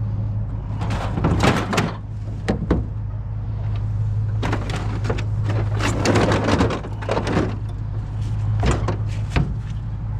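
A vehicle engine idling steadily, with several bouts of knocks, clunks and rattling over it: about a second in, through the middle, and near the end.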